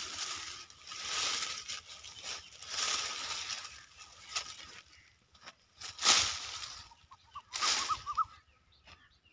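Dry leafy branches and twigs rustling and crackling as they are pulled up and bundled by hand, in repeated bursts. A few faint short bird calls come about two-thirds of the way through.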